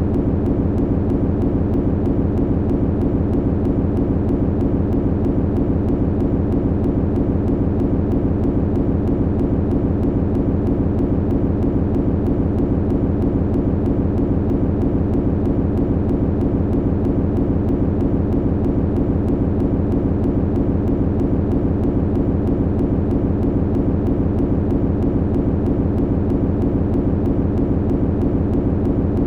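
Machinery humming: a steady low hum with a fast, even pulsing running through it, unchanging throughout.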